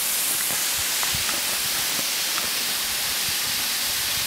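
Big Laurel Falls, a thin waterfall dropping over a rock ledge, makes a steady hiss of falling water and spray.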